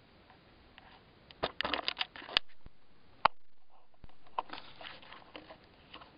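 Handling noise on a handheld camera's microphone: bursts of crackling rustle and sharp clicks, the loudest cluster about a second and a half in, one sharp click a little past halfway, then more crackling near the end.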